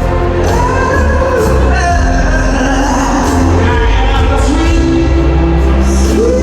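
Live rock band playing loudly while a woman sings long, bending, held notes over it.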